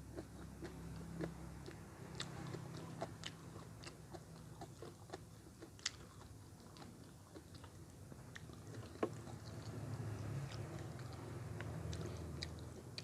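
A person chewing crunchy food close to the microphone, likely mouthfuls of green papaya salad with crisp fresh vegetables, making many irregular crisp crunches and wet mouth clicks.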